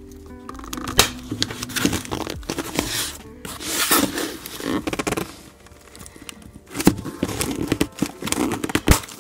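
Pen tip scraping and tearing through the packing tape and cardboard of a shipping box, in bouts of rough ripping with sharp clicks and a short lull in the middle.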